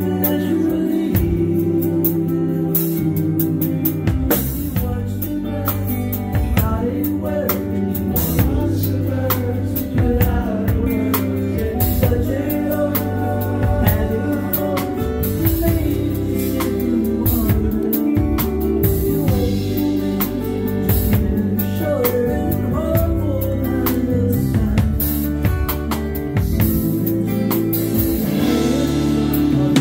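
Live band playing a song: strummed acoustic guitar, electric guitar and a drum kit keeping a steady beat, with sung vocals over them.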